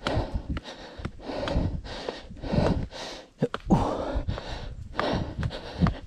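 A trail runner's heavy breathing, hard rhythmic breaths in and out, picked up close by a chest-mounted camera, with footfalls thudding on the trail underneath.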